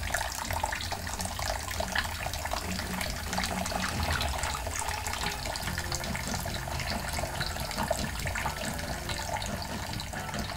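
Kitchen tap running into a stainless steel sink, a steady splashing hiss with small scattered clicks and drips through it.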